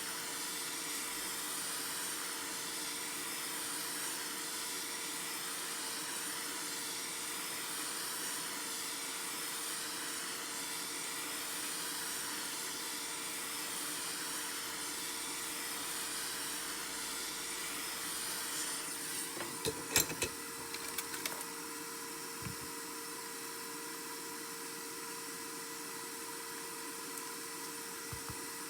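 A steady hiss with a faint, even hum beneath it. About two-thirds of the way through the hiss eases and a few small sharp clicks sound, with another couple of clicks later.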